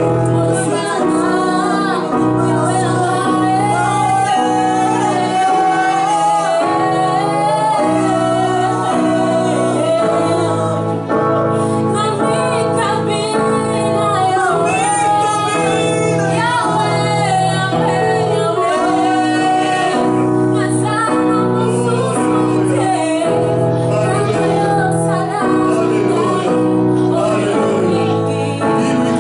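Worship song: a woman's voice sings a wavering melodic line over sustained chords of instrumental accompaniment.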